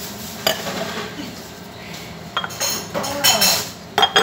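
Stainless steel teaware clinking and knocking as it is handled, with a hinged jug lid and a teapot on a stone counter. There is a sharp click about half a second in, then a run of ringing metallic clinks in the last two seconds.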